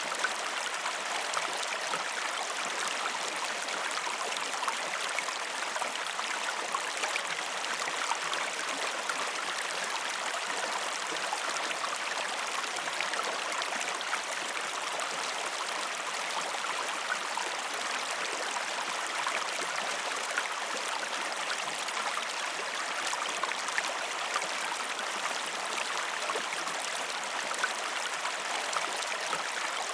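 River water flowing over stones: a steady rushing with fine splashing and babbling.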